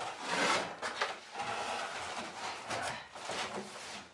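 Scraping and rubbing with several short knocks as cardboard packaging is pulled out of a new stove.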